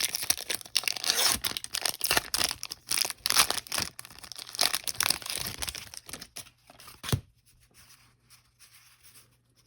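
Foil Pokémon Sun & Moon booster pack wrapper being torn open and crinkled: a dense crackle for about seven seconds that ends in a sharp snap, then quiet handling.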